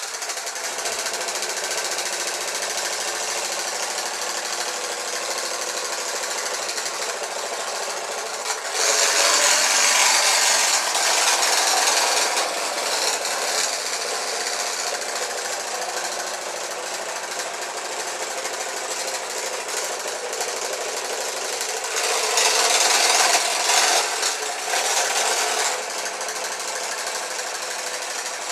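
Oscillating electric toothbrush motor switched on, buzzing and rattling steadily as it drives a cam that wiggles the flipper paddle of a toy boat in bath water. The racket grows louder for a few seconds twice, about nine and twenty-two seconds in.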